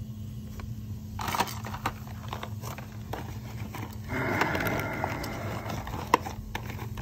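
Hands rummaging through a soft tool bag: scattered clicks and clinks of tools, a denser stretch of fabric rustling about four seconds in, and one sharp click near the end, over a steady low hum.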